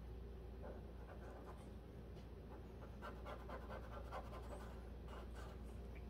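Faint scratching of a felt-tip permanent marker drawn around a round template on painter's tape, in short strokes.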